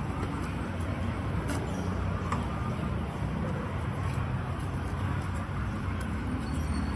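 Steady low rumble of road traffic, with a few faint knocks from a large knife cutting into jackfruit.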